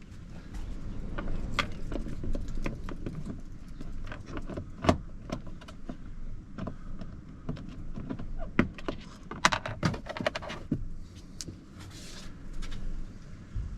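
Irregular clicks, knocks and small rattles of hands and tools working on a car door's trim panel and fittings, with a quick run of clicks about two thirds of the way through.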